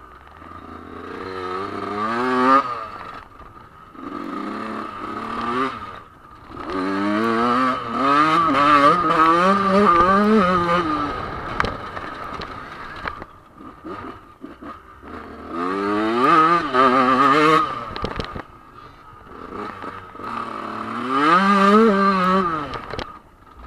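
Dirt bike engine revving hard in repeated surges, pitch rising and falling as the throttle is opened and closed, with quieter dips between.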